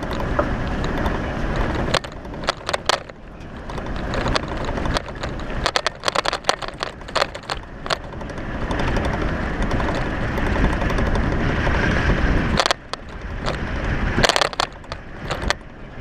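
Jeep Wrangler driving off-road on a rough dirt trail: engine running under a dense rumble of tires crunching over rocks and gravel, with many sharp cracks and knocks throughout.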